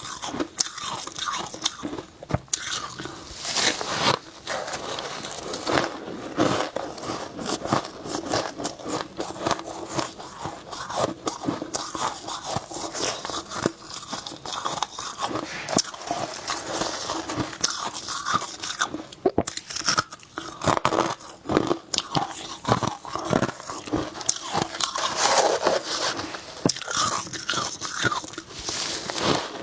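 Humidifier frost being bitten and chewed, a continuous run of dense crunches.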